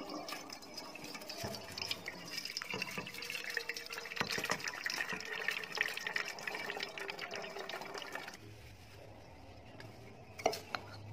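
Boiled banana-blossom cooking water pouring and splashing through a perforated steel colander into a steel bowl as the blossom is drained. The pouring stops about eight seconds in, and a short knock comes near the end.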